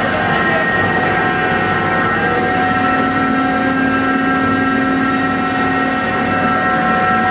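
Red chilli pulveriser plant running steadily: a loud, even machine drone with several constant whining tones, and a lower hum that comes in for a few seconds mid-way.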